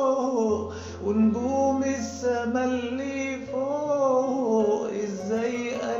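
A man singing an old Egyptian-style Arabic tarab song in long, wavering held notes without clear words, over an instrumental backing whose low bass note changes about three and a half seconds in.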